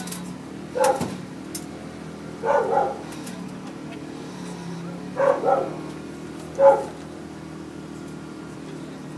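A dog barking in short single and double barks, four times, over a steady low hum.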